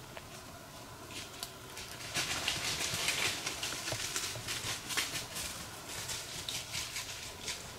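A whitetail doe's footsteps crunching through dry fallen leaves, an irregular crackle that gets louder and busier from about two seconds in as she comes closer.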